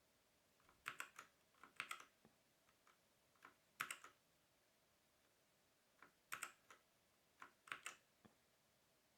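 Keys of a Havit 60% mechanical keyboard with brown switches being pressed in short clusters of two or three clacks, five times with pauses between, as key combinations cycle the RGB lighting modes.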